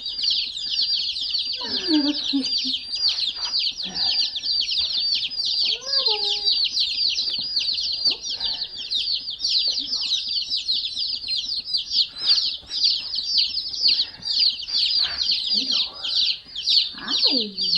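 A brooder full of baby chicks peeping nonstop: many high, short, falling chirps overlapping into a constant chorus.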